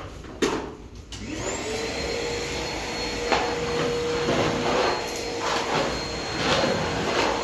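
Canister vacuum cleaner switched on about a second in, its motor spinning up with a rising whine and then running steadily as the floor nozzle is pushed over a bare floor. A single knock comes just before it starts.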